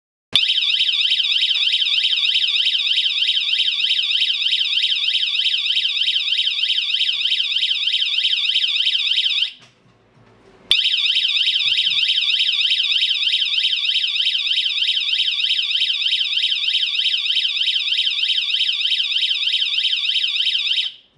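LTE-1101J 220 VAC rotating warning light's electronic alarm sounder going off, a loud high-pitched tone warbling quickly up and down in pitch. It cuts out for about a second near the middle, then starts again and runs until just before the end.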